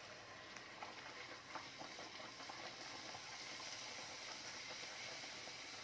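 Puri deep-frying in hot mustard oil in a kadhai while a wire skimmer presses it under: a quiet, steady sizzle with small crackles.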